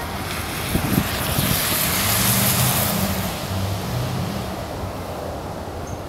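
A car passing by: tyre hiss swells to a peak two or three seconds in and fades away, with a low engine hum underneath. A few short low thumps about a second in.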